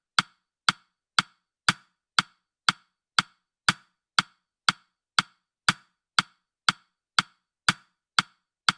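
Countdown timer's ticking sound effect: sharp, even clock-like ticks, two per second, with silence between them.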